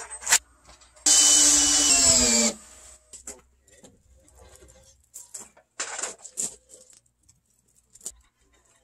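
A power tool runs loud for about a second and a half, then winds down in pitch and stops as it is released. Scattered short knocks of timber being handled follow.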